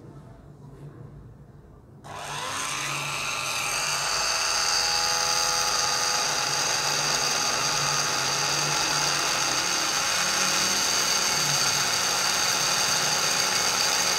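A 130-watt mains electric rotary motor, rated to 30,000 RPM, drives a home-made flexible-shaft porting tool with a diamond burr. It starts about two seconds in, rising in pitch as it spins up over about a second, then runs on as a steady high whine.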